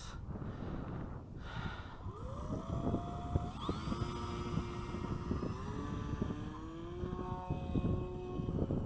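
Electric motor and propeller of a foam Tundra RC model plane whining as the throttle opens for takeoff: the pitch rises from about two seconds in, jumps up near three and a half seconds, then holds with small upward steps. Wind rumble on the microphone underneath.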